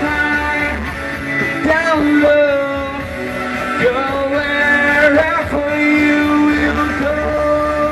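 A male singer holds long notes into a handheld microphone, sliding up and down between them, over backing music.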